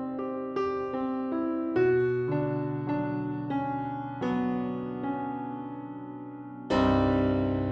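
Background music: a slow melody of single piano notes, each struck and left to fade, with a louder full chord struck near the end and left ringing.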